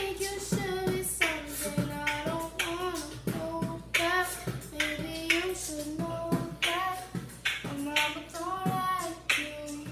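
A boy singing a slow pop melody, with a beatboxed beat behind him: one short stroke about every two-thirds of a second.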